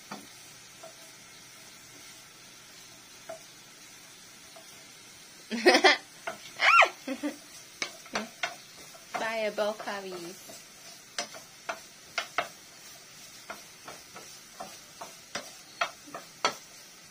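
Wooden spatula stirring broccoli, onion and garlic in a nonstick frying pan over a faint sizzle. The first five seconds or so are just a quiet steady hiss; after that come repeated knocks and scrapes of the spatula against the pan.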